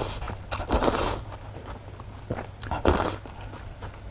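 Close-miked eating: biting and chewing food, with two louder noisy bursts, about a second in and about three seconds in.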